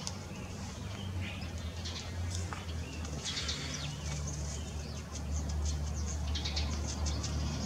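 Grey squirrel gnawing on a bone: runs of quick, dry scraping ticks as its incisors rasp the bone, several a second. A low steady rumble lies underneath, louder in the second half.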